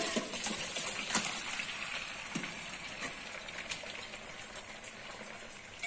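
Cooked drumstick leaves and sprouted horse gram, with their cooking water, poured from an aluminium pressure cooker into a perforated colander. The liquid gushes through the holes, then drains and trickles, fading gradually, with a few small clicks.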